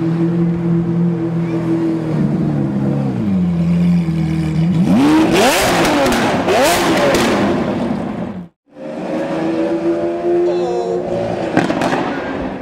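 Lamborghini Aventador V12 running at low revs, then revved hard twice about five to seven seconds in, with crackling pops from the exhaust as it accelerates away. After a brief break it runs steadily again with a short rise in revs near the end.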